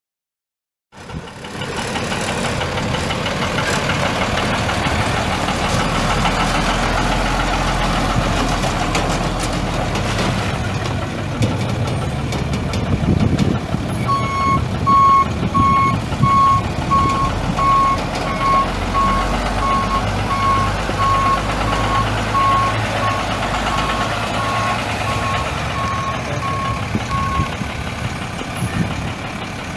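The 1999 International 4700's DT466 7.6-litre straight-six turbo diesel running; the sound cuts in abruptly about a second in. From about halfway through, a backup alarm beeps steadily, a little more than once a second, for some 13 seconds.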